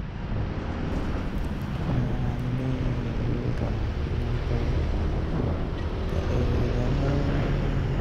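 Yamaha NMAX 155 scooter riding in traffic: the engine runs under a steady rush of road and wind noise, its pitch rising from about two seconds in, dropping around the middle and rising again near the end as it speeds up and slows.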